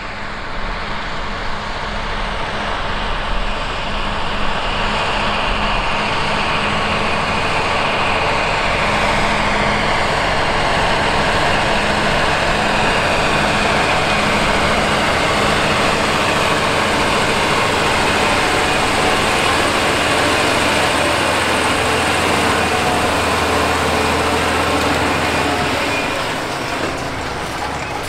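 John Deere 9RX 640 track tractor's diesel engine running steadily under load as it pulls a 42-foot vertical tillage tool and rolling harrow through the soil. It grows louder as the tractor approaches, then eases off a little near the end as it goes past.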